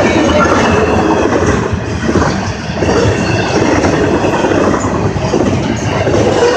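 A freight train's double-stack intermodal container cars rolling steadily past close by, a loud continuous noise of steel wheels on rail.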